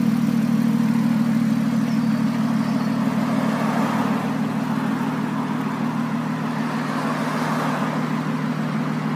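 Lotus Exige Sport 380's supercharged 3.5-litre V6 idling steadily.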